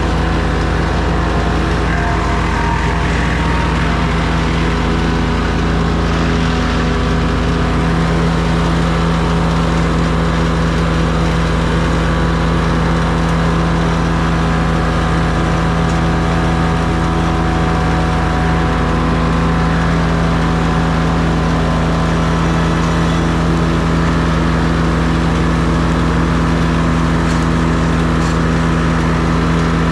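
An engine running steadily at one constant speed, with no revving or change in pitch.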